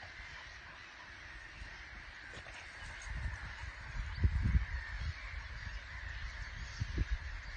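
Open-field ambience: wind rumbling on the microphone in gusts, strongest about four seconds in and again near seven seconds, over a steady faint high background.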